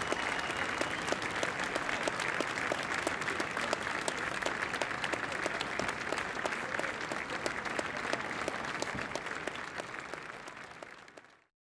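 Large audience applauding, dense and steady, with a high held tone like a whistle in the first second; the applause fades away over the last second and a half.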